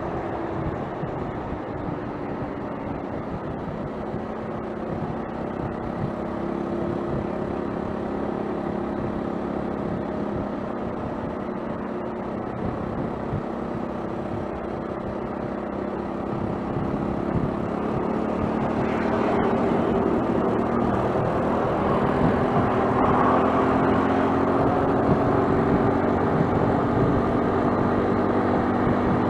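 Vehicle running at expressway speed: a steady engine drone with road and wind noise, growing louder and busier about two-thirds of the way through.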